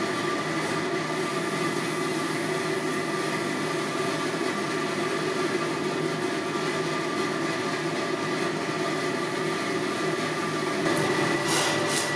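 Blacksmith's forge running steadily, a constant rushing noise with a faint hum in it, while a Damascus billet heats to welding heat. A few brief clicks come near the end.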